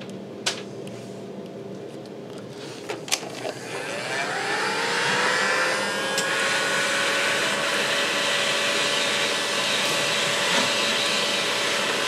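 Two sharp clicks, then a heat gun's fan motor spinning up in a rising whine about three and a half seconds in and running steadily, blowing hot air to shrink heat-shrink tubing on a headphone cable.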